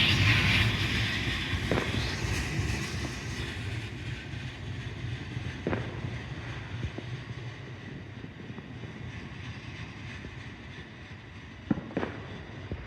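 A train's rumble fading steadily away as it moves off. A few sharp cracks punctuate it, two close together near the end.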